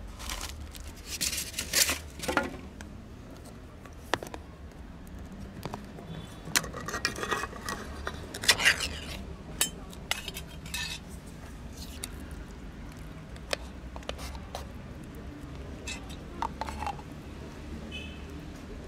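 Scattered clinks and knocks of a metal food tin and dishes being handled, some ringing briefly, over a steady low rumble.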